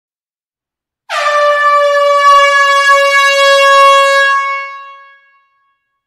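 An air horn sounding one long, steady blast in a small enclosed hall. It starts about a second in and fades out near the end.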